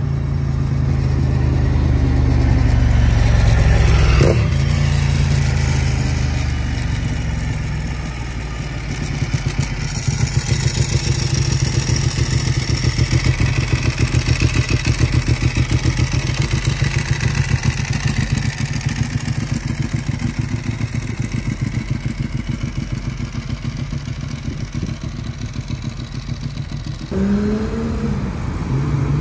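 Ducati 1098R's L-twin engine through a Termignoni racing full exhaust, loud, as the bike is ridden. It pulls strongly for the first few seconds, changes sharply about four seconds in, then runs through a long stretch of rapid, even pulsing, with a rising rev near the end.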